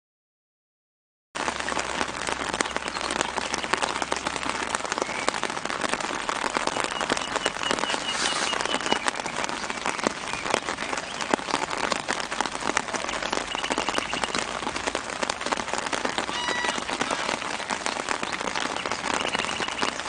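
Steady rain falling, a dense patter of drops on the ground and leaves. It starts suddenly just over a second in.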